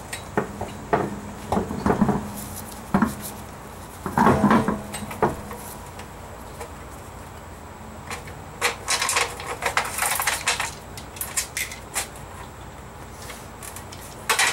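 Lug nuts clinking and rattling against the wheel studs as a car wheel is refitted and the nuts are started by hand. Some duller knocks come in the first few seconds, and a run of quick, sharp metal clicks from about eight to eleven seconds in.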